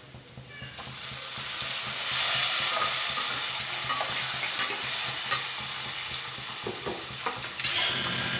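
Chopped tomatoes going into hot oil with fried onion and garlic in a stainless-steel kadhai: the frying sizzle swells up over the first two seconds, then holds steady, with a few sharp clicks of a metal spatula stirring against the pan.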